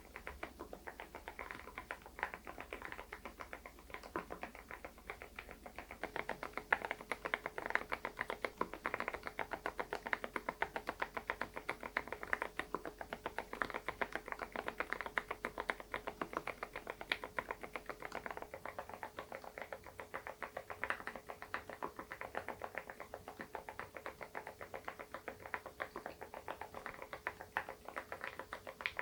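Continuous fast typing on an SPM PL108W full-size keyboard with lubed Mokse low-noise switches: a steady stream of keystrokes, several a second.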